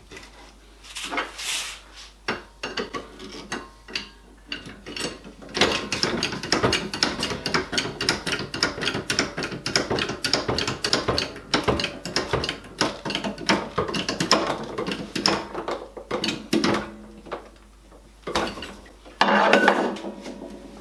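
Rapid ratcheting clicks of a clamping press being tightened down on a glued-up wooden board, starting after a few scattered knocks about five seconds in and stopping shortly before a louder clatter near the end.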